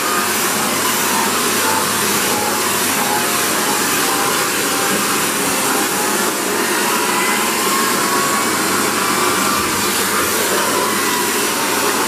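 Shark NV602UKT Lift-Away vacuum cleaner running steadily, its hose and small nozzle sucking over carpeted stairs. It gives a steady, loud rushing hiss with a faint whistle that wavers slightly in pitch.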